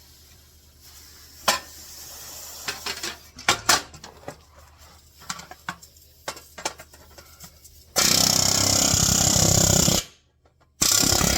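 Light metal clinks and taps, then a pneumatic air hammer rattling in a burst of about two seconds and again briefly near the end, setting rivets. It runs on low air pressure so the rivet heads don't mushroom.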